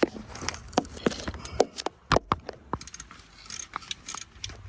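Metal hand tools clicking and clinking against parts in a car engine bay: a string of irregular sharp clicks and knocks.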